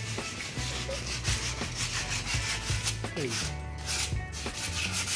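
Hand sanding with sandpaper: quick, even back-and-forth rubbing strokes, several a second, pausing briefly about three and a half seconds in.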